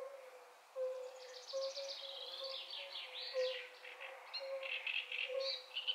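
Frog chorus: many short, mellow calls at one pitch, repeating unevenly from several frogs. Birds sing and chatter rapidly over them from about a second in.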